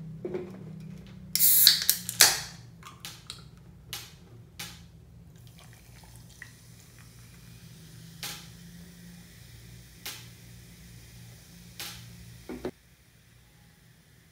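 Aluminium drink can opened with a sharp crack and hiss about a second and a half in, then the drink poured over ice cubes in a glass mug, fizzing faintly, with a few sharp clinks of ice.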